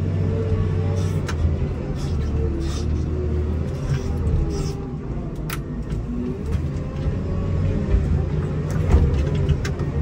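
Komatsu WA270 wheel loader's diesel engine running under load while it pushes snow with a Live Edge pusher, its pitch rising and falling with the throttle, with a few sharp knocks and clunks along the way.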